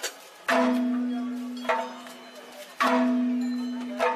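Traditional percussion music with two deep bell-like strokes about two seconds apart, each ringing and slowly fading, and sharper taps between them.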